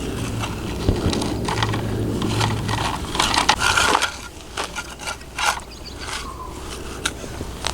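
A toy construction vehicle scraping and digging through sand and gravel: gritty scrapes with small stones clicking and rattling, busiest about three to four seconds in.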